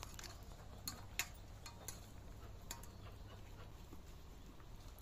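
Eating rice by hand from a stainless steel plate: scattered light clicks and taps as fingers mix and scoop the food against the plate, one a little louder just over a second in.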